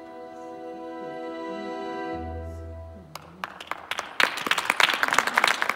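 A held closing chord of stage-musical music, with a low bass note near the end, fades out. About three seconds in, audience applause breaks out and quickly grows loud.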